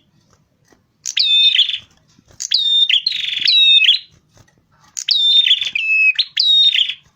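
A prinia singing in three loud phrases with short pauses between them. Each phrase is a run of high whistled notes that drop sharply in pitch, and the middle phrase carries a short buzzy trill.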